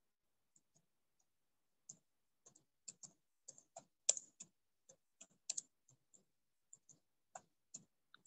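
Computer keyboard being typed on: an irregular run of faint key clicks, a few per second, starting about half a second in.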